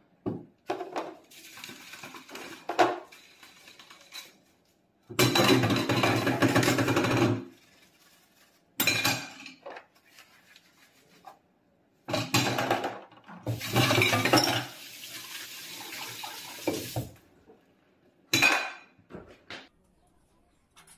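Dishwashing clatter: plates, glass and steel bowls clinking and scraping against one another. It comes in several loud bursts of one to two seconds, with quieter clinks in between.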